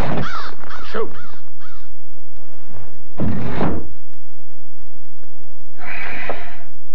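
Harsh cawing calls, a quick run of about four, then a heavy thump about three seconds in and a noisy burst near the end.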